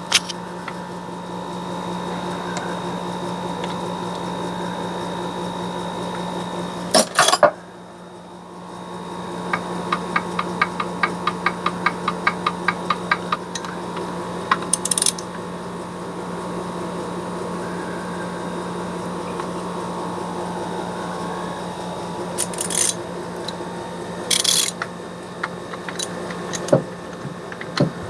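Hand-tool work on a Corvair differential's side-bearing adjusters: a few sharp metal clacks and, about ten seconds in, a run of rapid, even clicks for about four seconds, over a steady background hum.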